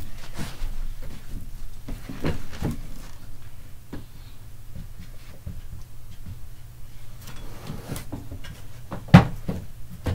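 Rummaging through things on a shelf: scattered knocks, clicks and rustles as small objects are moved about, with one louder knock about nine seconds in, over a low steady hum.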